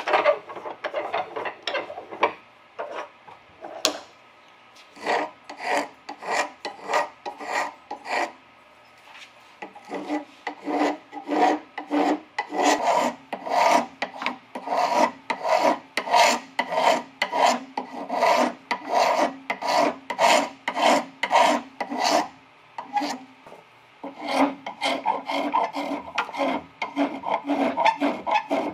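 A spokeshave's blade shaving end grain around the knob of a hand-carved wooden baseball bat (a wood the maker thinks is mulberry), in short scraping strokes. The strokes are sparse at first, then come quick and regular at about two a second, with a brief pause near the end.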